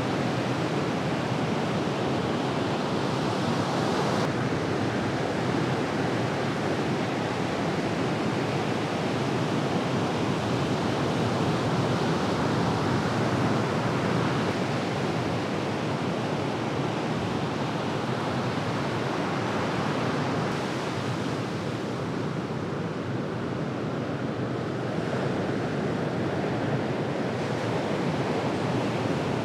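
Ocean surf: a steady wash of breaking waves and whitewater, with no other distinct sounds.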